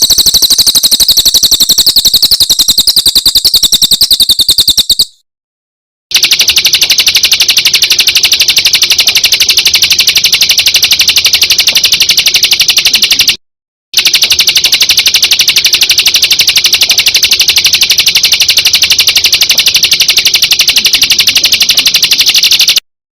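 Songbird 'tembakan' song fill: a very fast, machine-gun-like trill of evenly repeated high notes, given in three long bursts with short breaks about five seconds in and about thirteen seconds in. The first burst is higher-pitched than the other two.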